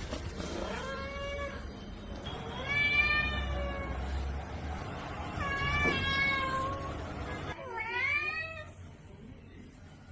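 A domestic cat meowing four times, each drawn-out meow lasting about a second; the last one sweeps sharply up in pitch as it begins.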